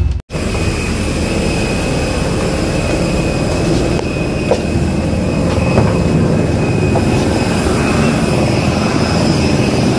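Steady high jet-engine whine over a low rumble on an airport apron, with a couple of faint knocks.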